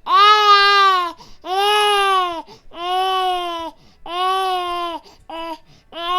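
A baby crying in a series of wails, each about a second long, with short breaths between them; the last cry is briefer.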